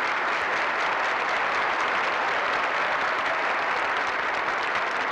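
A huge crowd applauding, a steady, dense roar of clapping.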